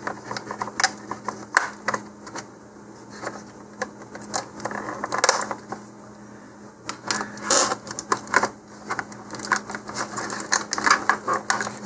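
Scattered light clicks and plastic rustling as the rubber bands holding a model rocket to its plastic packaging insert are cut with a hobby knife and the rocket is handled. The clicks come thicker in the second half.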